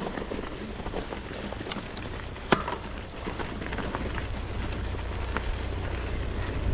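Mountain bike riding down a dirt trail: steady tyre and rushing-air noise with a few sharp knocks and rattles, the loudest about two and a half seconds in. The low wind rumble on the microphone grows louder near the end.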